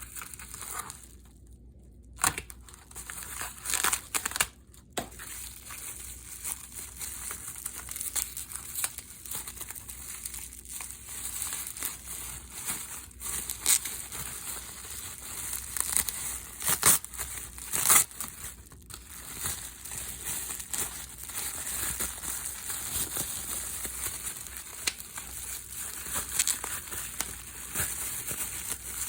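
Plastic packaging crinkling and rustling as the airbrush compressor's accessory parts are unwrapped, with a few sharper, louder crackles along the way.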